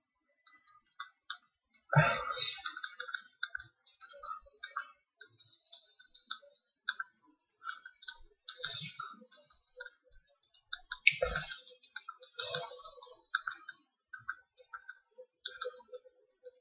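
Computer keyboard being typed on, in irregular runs of key clicks, with louder thumps about two seconds in and again a little past the middle.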